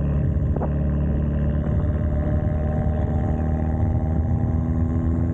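Straight-piped Hyundai Genesis Coupe running at a steady cruise, its exhaust a continuous drone whose pitch creeps up slightly.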